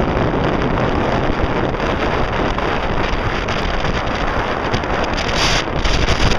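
Strong wind buffeting the microphone over the rush of white water along a sailing yacht's hull in rough seas, with a louder burst about five seconds in.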